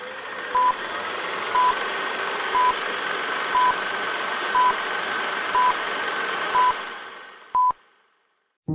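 Old-film countdown leader sound effect: a short high beep once a second, eight in all, over a steady hiss and crackle. The last beep is slightly longer, and the hiss then fades away to silence.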